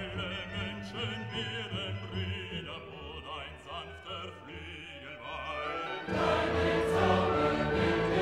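Background music: a singing voice with wide vibrato over a soft accompaniment, then the music swells suddenly louder and fuller, like a choir and orchestra, about six seconds in.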